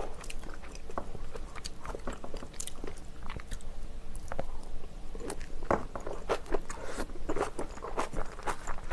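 Close-miked eating sounds: a bite into a piece of spicy braised chicken (dakbokkeumtang), then chewing with many small wet clicks. The clicks grow denser and louder in the second half.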